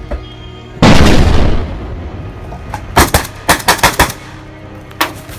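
AK-pattern rifle firing: a long, loud blast about a second in, then quick strings of sharp shots, several in fast succession around three to four seconds in and a few more near the end. Background music runs underneath.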